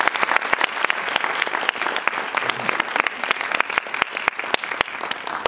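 Audience applauding, many hands clapping in a dense patter that begins to fade near the end.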